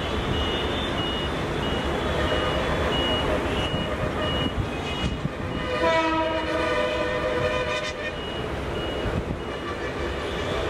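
A train horn sounds once for about two seconds midway, over a steady rumble of train and traffic noise. A high beep repeats about twice a second throughout.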